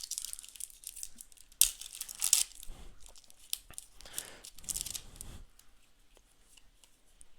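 A trading-card booster pack wrapper is torn open by hand, crinkling and crackling in several bursts.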